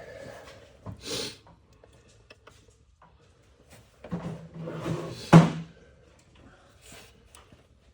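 Parts and tools being handled under the hood: a knock about a second in, then a longer rattle and scrape ending in a sharp clunk, the loudest sound, near the middle.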